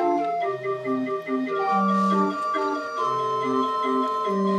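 Organ playing a gentle tune: a bass line changing note about once a second under short repeated chords and a held melody line.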